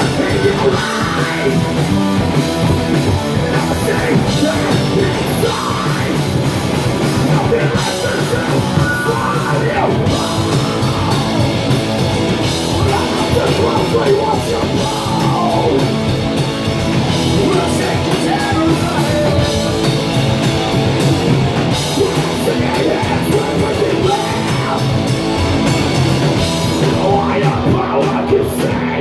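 Live rock band playing loud: distorted electric guitars, bass guitar and a drum kit, with the singer singing and shouting into the microphone.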